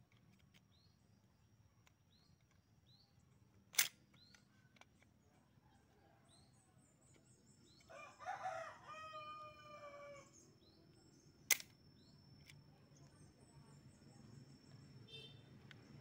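Two sharp clicks about eight seconds apart, from the rubber-band crossbow's trigger mechanism being worked by hand. Between them a rooster crows once in the background, and small birds chirp.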